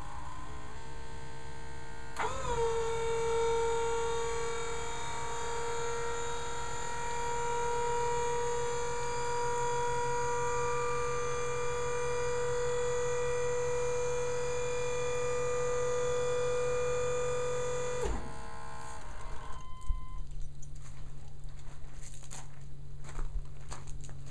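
The dump bed's electric-hydraulic pump on a 1993 Chevy C3500 dump truck, raising the bed. A steady motor whine starts about two seconds in, holds for around sixteen seconds and winds down with a falling pitch. Footsteps crunch on gravel near the end.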